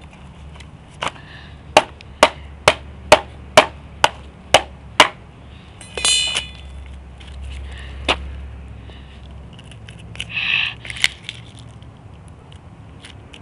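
A quick run of about nine sharp knocks and cracks, roughly two a second, as the mock laptop's parts are broken apart and the touchpad piece is pried loose. A short squeak follows, then a single click and a brief crackle with a click near the end.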